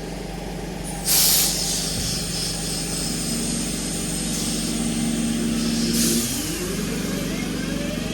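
Class 323 electric multiple unit pulling away from the platform over a steady low hum: a loud hiss of released air about a second in, a second hiss near six seconds, then a rising whine from the traction motors as it starts to accelerate.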